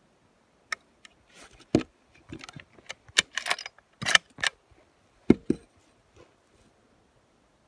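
A series of sharp clicks and short rustling scrapes close to the microphone, handling noise of gear or clothing, with the loudest knocks a little under 2 s in and about 5 s in.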